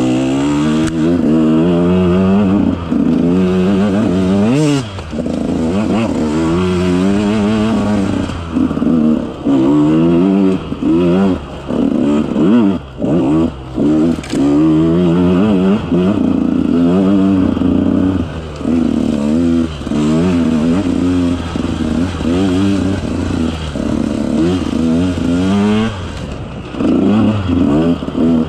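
2018 KTM 150 XC-W two-stroke single-cylinder dirt bike engine under riding load, revving up and down over and over as the throttle is worked on and off, with short drops between the bursts.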